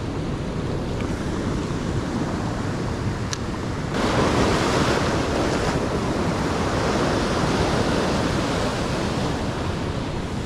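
Ocean surf breaking and washing over the rocks, with wind buffeting the microphone; the surge grows louder about four seconds in as a bigger wave comes through.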